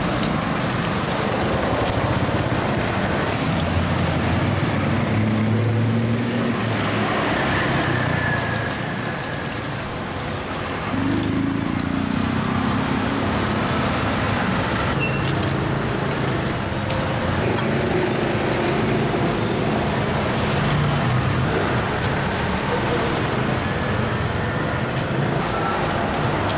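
Street traffic noise: motor vehicle engines running and passing, under a steady hiss. It drops briefly about ten seconds in and comes back suddenly.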